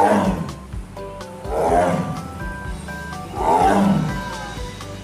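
A tiger roaring three times, about two seconds apart, each roar dropping in pitch, over background music with a steady beat.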